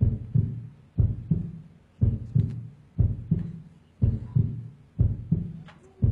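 A loud, amplified heartbeat: paired lub-dub thumps about once a second, heard as the stethoscope is pressed to the patient's chest.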